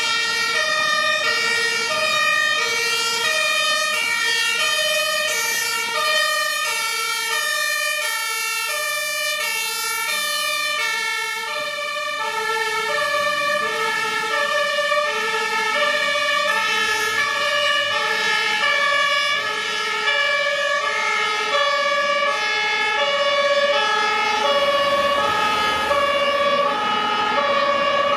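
Fire engines' two-tone sirens (German Martinshorn) sounding as the trucks drive by on an emergency run, the high and low notes alternating steadily.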